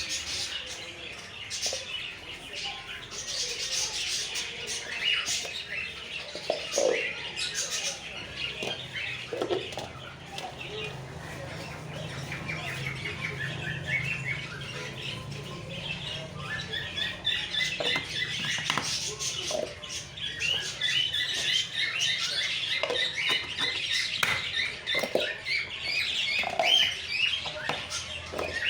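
Many small cage birds chirping in quick, short notes that grow busier in the second half, with scattered sharp knocks and clicks.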